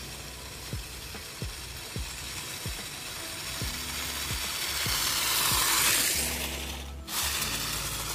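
Toy-grade 4WD RC rock crawler's electric motors and gearboxes whirring as it drives toward the camera, growing louder and loudest about six seconds in. The sound breaks off abruptly about seven seconds in, then briefly returns as the car passes close.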